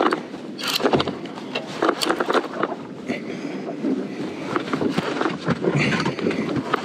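Small boat on open water with wind on the microphone, and the irregular clicks and knocks of a heavy rod and large conventional reel being cranked while fighting a fish.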